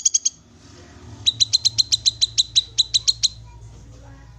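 Cucak kinoi calling: a rapid, even run of sharp, high chirps, about nine a second. A short run ends right at the start, and a longer run of about two seconds begins about a second in.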